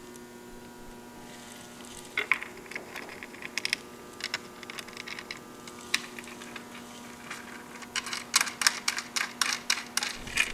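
Small metal hardware clicking and clinking: washers and nuts being handled and fitted onto the bracket bolts. The clicks are scattered at first and come quick and dense near the end, over a faint steady hum.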